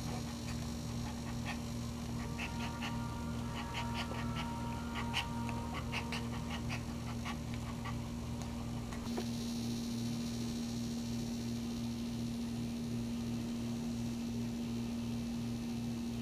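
Small dog in labour making breathing and vocal sounds: a run of quick, regular short breaths and a thin, held whine in the first half. A steady low hum runs under it all.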